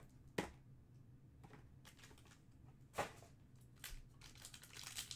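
Hands handling a cardboard trading card box and a sealed card pack, mostly quiet. Two sharp clicks of cardboard or wrapper, about half a second in and about three seconds in, with a few fainter ticks between.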